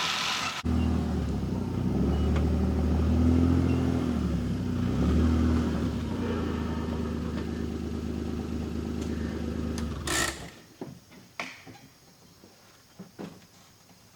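A vehicle engine running, its pitch rising and falling as it revs, then shutting off about ten seconds in. A few scattered knocks follow.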